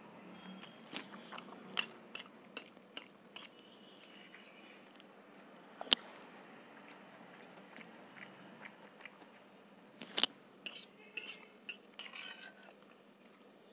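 A steel fork clinking and scraping against a stainless steel plate as it gathers Maggi noodles, in scattered sharp clinks with a quicker run of them near the end, with soft chewing of noodles between.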